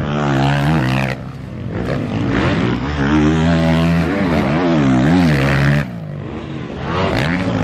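Motocross race bikes' engines revving hard and easing off as they take a jump, the pitch rising and falling several times, with short lulls about a second in and again near the six-second mark.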